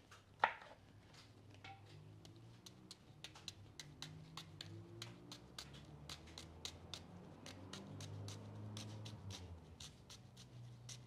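Kitchen knife cutting into a white onion held in the hand, a run of short crisp clicks about three or four a second as the blade slices through the layers. A faint low drone swells and fades underneath, strongest about eight seconds in.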